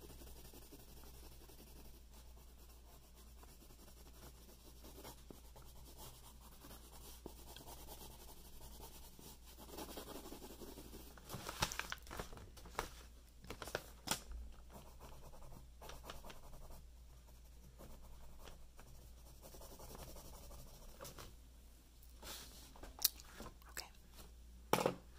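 Pen drawing on paper: a soft scratching, with clusters of sharper clicks and taps about halfway through and again near the end.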